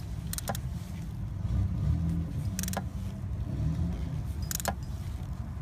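A spark plug socket and extension being handled at the plug well: a few sharp clicks, a close pair about half a second in, then one near the middle and one near the end, over a steady low rumble.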